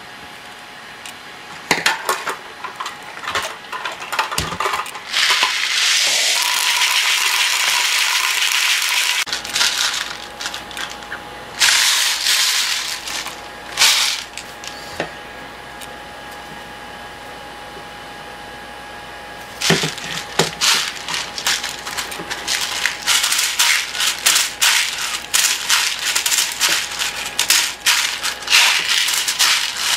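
Airsoft BB pellets pouring and rattling in a plastic PET bottle. About five seconds in there is a steady rush of BBs pouring into the bottle for about four seconds. From about two-thirds of the way through, a rapid clatter of BBs rattling as the bottle loader is worked to feed them into an airsoft magazine.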